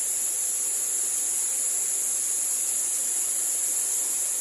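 A steady, high-pitched drone of insects over the even rush of a waterfall.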